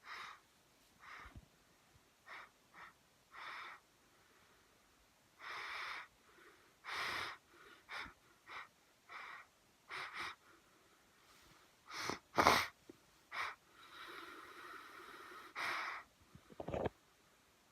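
A man in a sneeze attack: a run of about fifteen short sneezes and sharp breaths, one after another, with quiet gaps between them. The loudest sneeze comes about twelve seconds in, followed by a longer wheezy breath lasting a couple of seconds.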